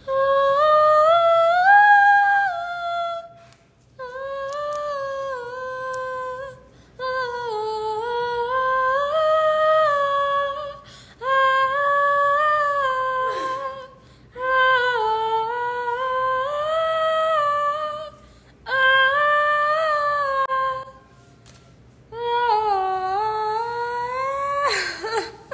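A woman singing a wordless melody unaccompanied, in about seven long held phrases separated by short pauses for breath.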